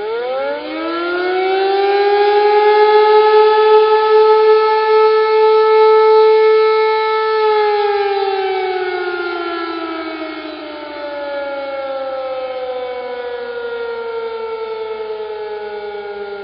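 Air-raid siren sound effect. It winds up quickly to a steady wail, holds for several seconds, then slowly winds down in pitch.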